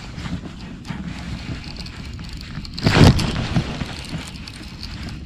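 Low rumbling wind and handling noise on the microphone, with faint scattered clicks and one loud thump about three seconds in.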